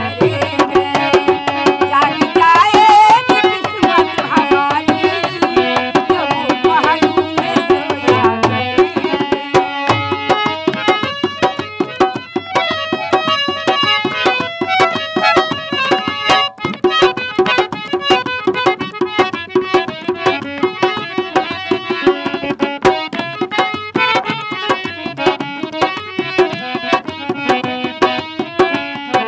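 Folk-song accompaniment: a dholak, a two-headed barrel drum, struck by hand in a quick steady rhythm under sustained melody notes from a small keyboard instrument.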